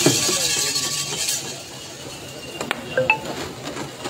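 Metallic jingling and clinking from the racing bull pair's harness as the team passes close by, loudest in the first second and a half and then fading, with a few sharp clicks about three seconds in.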